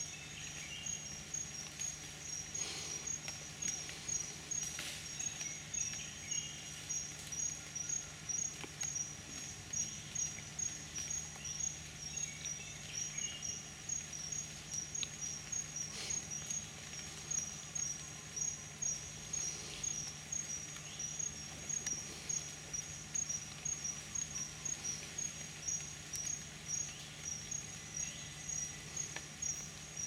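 Rainforest insect calling: a high, pulsing chirp that repeats evenly about twice a second, with a few faint snaps here and there.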